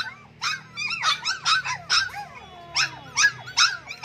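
Puppies yelping and whining in a rapid string of short, high-pitched cries, about three to four a second.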